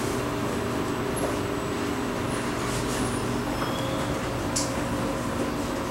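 Cabin noise of a Kawasaki-Nippon Sharyo C751B electric multiple unit slowing to a stop at a station: a steady low rumble and hum, with the train's humming tones fading out about halfway through.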